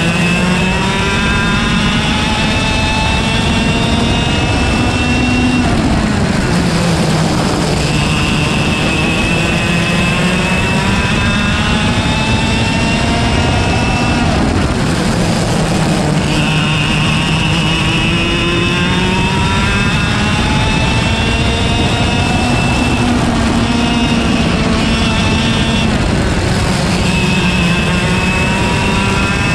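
Single-speed IAME KA100 two-stroke kart engine at race pace, heard onboard: its pitch climbs steadily down each straight and drops away as the driver lifts for the corners, several times over.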